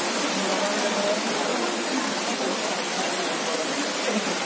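Rain falling steadily: a constant, even hiss.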